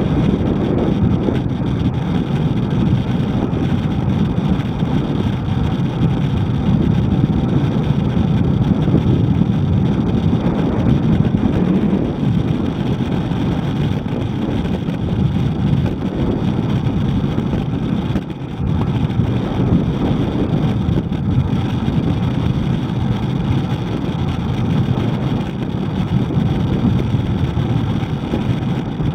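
Steady low rush of wind on a riding cyclist's camera microphone, mixed with road and traffic noise, with a brief drop in level about eighteen seconds in.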